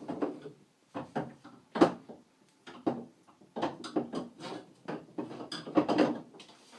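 Irregular knocks and clunks of things being handled and set down inside a refrigerator during cleaning.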